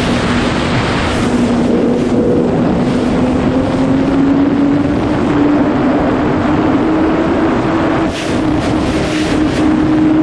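Honda CBR1000RR's inline-four engine pulling hard at high revs, its note rising slowly and steadily as the bike accelerates. Wind rushes over the microphone throughout and gusts harder near the end.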